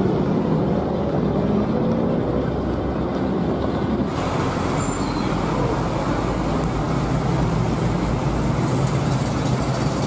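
Coach bus engine running as the bus drives by, over steady road traffic noise. About four seconds in the sound changes abruptly to another bus moving in traffic.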